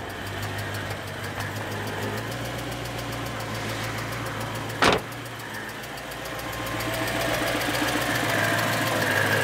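BMW E92 M3's 4.0-litre S65 V8 idling roughly with a miss and a tick, from an engine found to have metal shavings in its oil filter and believed to have failed bearings. It grows louder toward the end, and one sharp click is heard about five seconds in.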